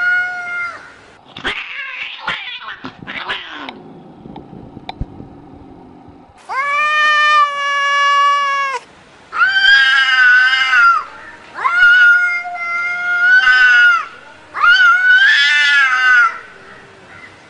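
Domestic cats caterwauling in a standoff: a run of about five long, drawn-out yowls, each lasting one to two seconds with a wavering pitch. A brief scratchy noise comes a couple of seconds in, before the yowls.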